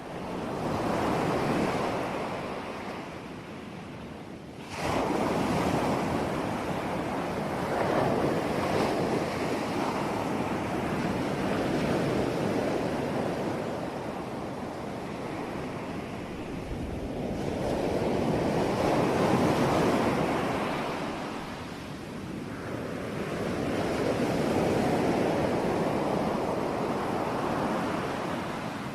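Sea waves breaking on the shore: a continuous surf wash that swells and ebbs in slow cycles several seconds long. The level jumps suddenly about five seconds in.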